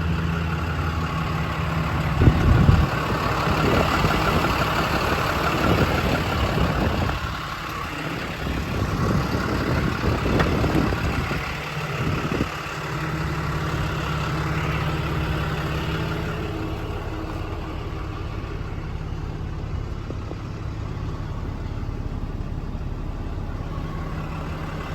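6.7-litre Cummins straight-six turbo-diesel idling steadily. Clunks and rustling come over it during the first half, the loudest a sharp thump about two seconds in.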